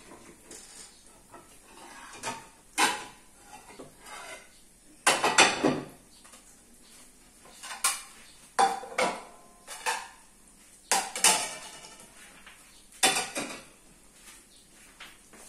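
Metal kitchen utensils and cookware clinking and clattering in a run of sharp knocks, some ringing briefly. The loudest clatter comes about five seconds in.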